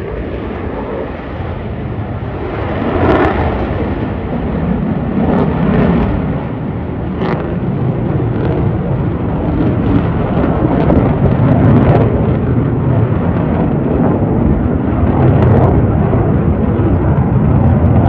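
F-22 Raptor's twin Pratt & Whitney F119 turbofans at high power as the jet climbs away after takeoff: a deep, continuous jet rumble full of crackle, growing louder after the first couple of seconds.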